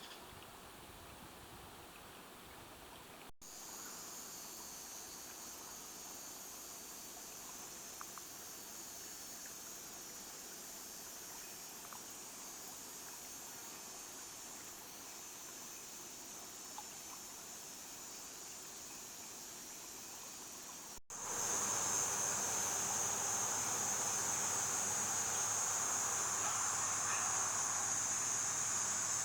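Steady, high-pitched insect chorus over a faint even hiss, with a couple of faint ticks; the sound jumps louder about two-thirds of the way through.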